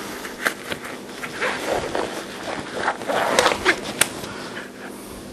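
Disposable gloves being pulled onto the hands: rubbery rustling and stretching, with a few sharp clicks.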